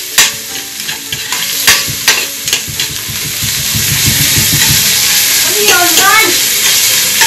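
Garlic and onion sautéing in hot oil in a metal stockpot: a steady sizzle, with a utensil clicking and scraping against the pot as it is stirred. The sizzle swells louder from about three seconds in.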